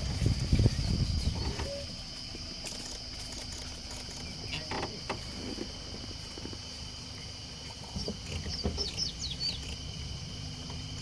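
Steady high drone of an insect chorus in the forest, with a few short bird chirps about eight to nine seconds in. A louder low rumble fills the first two seconds, then drops away.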